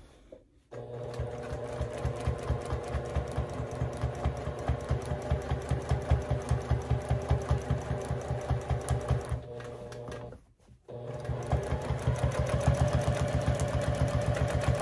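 Domestic sewing machine running at speed for free-motion quilting, its needle stitching in a rapid, even rhythm. It starts about half a second in, eases off and stops for a moment about ten seconds in, then runs again.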